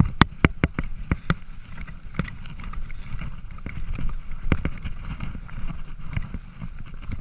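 Mountain bike riding over a rough dirt singletrack: irregular sharp knocks and rattles from the bike over bumps, over a steady low rumble.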